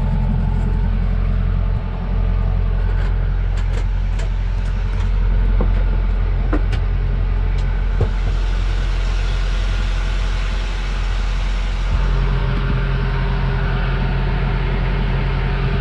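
A sailboat's engine running steadily under way, a low drone heard from inside the cabin. A few light knocks and clicks come between about three and eight seconds in as a floor hatch and gear are handled.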